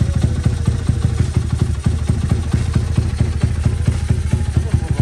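Motorcycle engine running steadily at idle, a rapid, even pulsing of exhaust beats.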